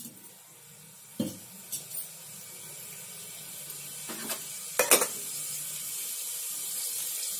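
Cooking oil heating in an aluminium pressure cooker on a gas stove: a steady sizzling hiss that slowly grows louder as the oil gets hot. A few short pops or knocks come through it, the loudest about five seconds in.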